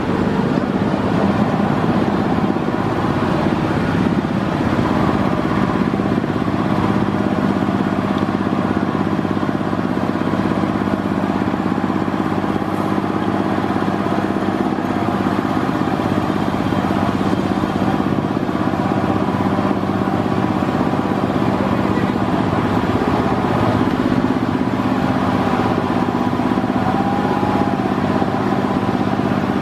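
A small engine running steadily at one even speed, a constant hum that does not change in pitch.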